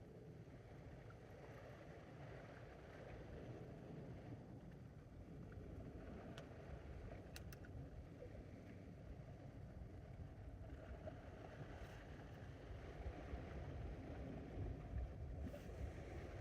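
Low rumble of wind on the microphone with wash of the sea, gusting louder near the end, and a couple of faint clicks about seven seconds in.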